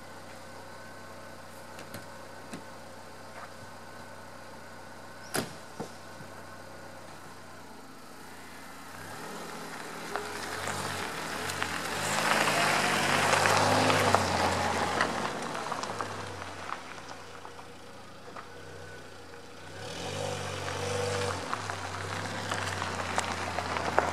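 Freshly rebuilt Saturn S-Series DOHC four-cylinder engine, first heard running steadily, with a car door shutting about five seconds in. The engine then revs up as the car pulls away and drives by, loudest about halfway through. It dies down, then revs up again near the end as the car accelerates off during break-in driving.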